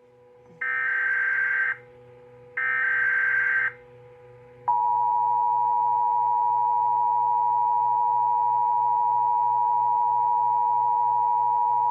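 Two bursts of Emergency Alert System SAME digital header tones, each about a second long. Then, a second later, the EAS two-tone attention signal starts sharply and holds steady, announcing a new alert.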